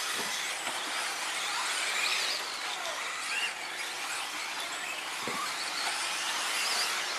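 Several 2WD electric off-road RC buggies racing, their motors and gears whining high and rising and falling as they accelerate and brake, over a steady hiss of tyres on dirt. A short dull knock about five seconds in.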